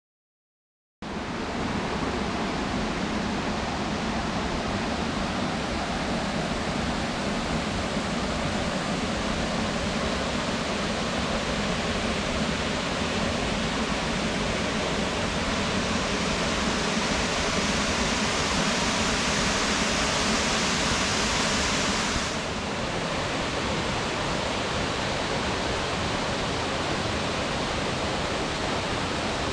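Waterfall rushing, a steady dense hiss of falling water that starts about a second in; the higher part of the hiss eases a little about 22 seconds in.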